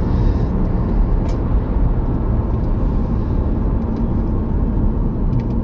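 Car driving along a road: steady road and tyre rumble heard inside the cabin.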